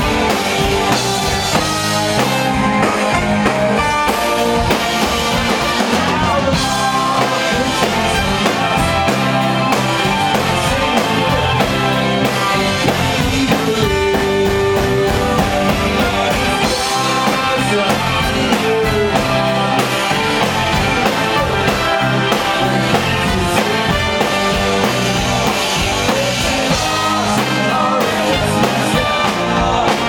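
Live rock band playing a loud stretch of the song: electric guitar, bass guitar and drum kit, with keyboard, trombone and saxophone, heard through an audience recording.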